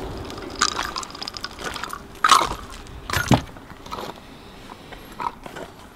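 Handling noise from a DP-12 pump shotgun: a string of irregular clicks and knocks as the gun is carried and set down on the shooting bench, the loudest about two and three seconds in. The echo of the previous shot is still fading at the start.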